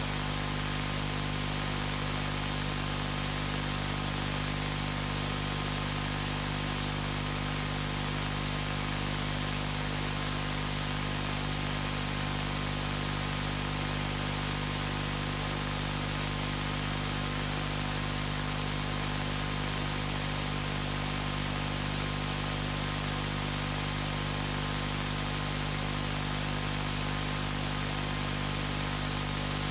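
Steady static hiss with a constant low electrical hum, unchanging throughout.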